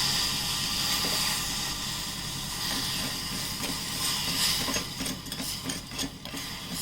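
Jaggery and a little water hissing in a hot pan as it melts into syrup, the hiss slowly fading. From about halfway in, rapid irregular clicks and scrapes of a spoon against the pan as the jaggery is stirred to dissolve.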